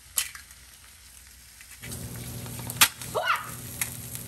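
An egg cracked with a sharp click, then dropped into hot oil in a four-well nonstick egg pan: steady sizzling starts a little under two seconds in and keeps going, with another click near the middle.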